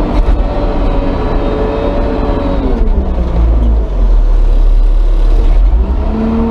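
Diesel engine of a Chinese front loader working under load, heard from the cab. The engine pitch drops about three seconds in, then a heavy low rumble is loudest while the bucket is lifted, and the pitch rises again near the end.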